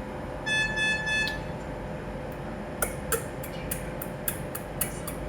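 An electronic beep sounds three times in quick succession. Then come about nine light rhythmic pats, nearly four a second, patting a newborn's back to bring up a burp after a feed.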